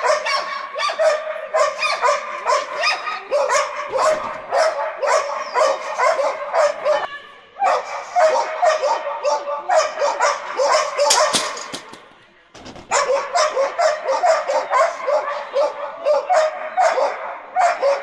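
A dog barking in rapid, excited yips, several a second and almost without let-up, breaking off briefly about seven seconds in and again for about a second near the twelve-second mark.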